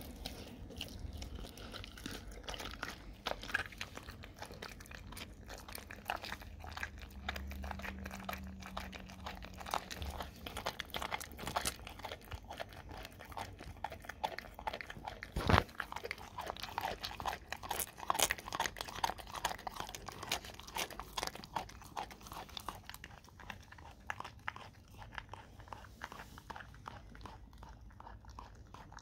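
A dog gnawing and chewing a whole raw cow tongue on concrete: wet, irregular biting and crunching sounds throughout, with one sharper, louder knock about halfway through.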